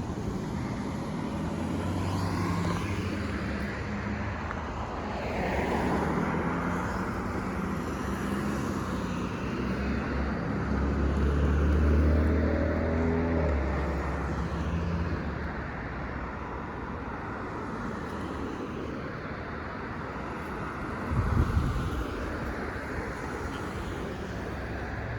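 Road traffic on a street: several cars driving past one after another, their engine and tyre sound swelling and fading, the loudest pass about halfway with a deep engine note. A brief low thump near the end.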